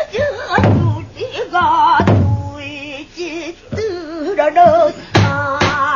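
Female pansori singer singing with wide, wavering vibrato, accompanied by a few deep strokes on the buk barrel drum.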